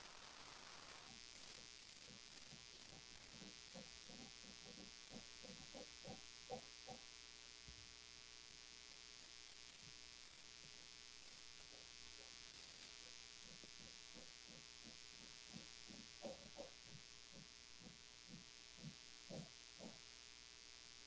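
Near silence: faint steady hum and hiss of an online call recording, with faint soft irregular pulses in two stretches.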